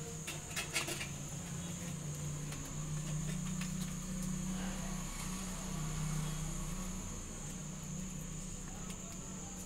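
A steady low hum with a constant faint high whine, and a few soft crackles and rustles of large leaves being folded, most of them just under a second in.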